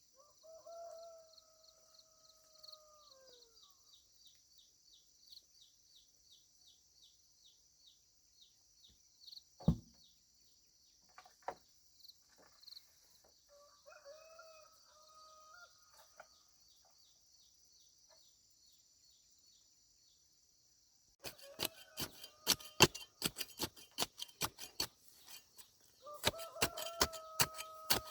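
A rooster crows three times, each a long call that drops off at the end, over a steady high drone of insects. About three-quarters of the way in, a fast run of sharp knocks starts and becomes the loudest sound. There is a single thump a little past a third of the way through.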